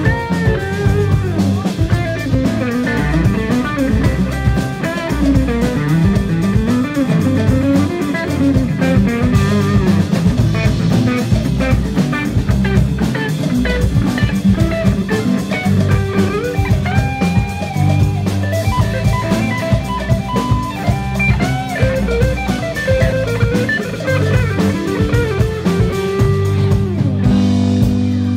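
Live rock band playing: electric guitar lead with bending, gliding notes over bass and drum kit.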